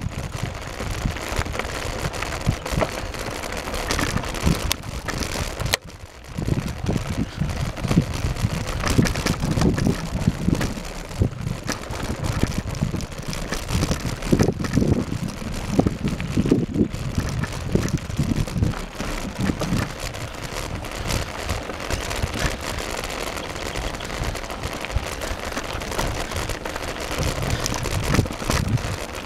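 Mountain bike rolling fast over a rough dirt trail, recorded on the move: a steady rumble of wind on the microphone with crackling, rattling tyre and frame noise from the bumpy ground. The noise dips briefly about six seconds in.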